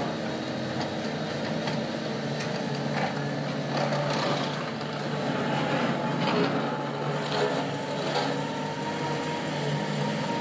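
Diesel engines of heavy excavator rigs running steadily, with a constant low engine drone and irregular clatter from the working machinery through the middle.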